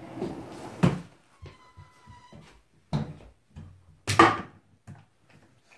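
Rustling and then several sharp knocks and clunks from a wooden cabinet pull-out and a plastic diaper pail being handled. The loudest thunk comes about four seconds in.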